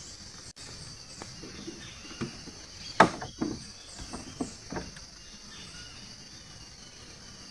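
Steady high-pitched chorus of insects such as crickets, with a handful of sharp knocks in the middle, the loudest about three seconds in.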